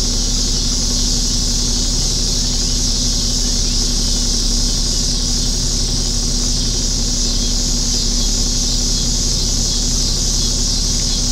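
Dense, steady chorus of summer insects, a shrill high-pitched hiss that does not let up, with a low steady hum beneath it.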